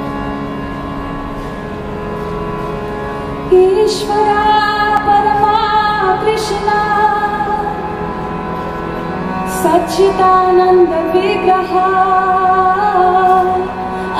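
Bina harmonium sustaining a steady chord, joined about three and a half seconds in by a woman's solo singing voice in a slow devotional kirtan melody, with a brief pause in the singing just before the ten-second mark.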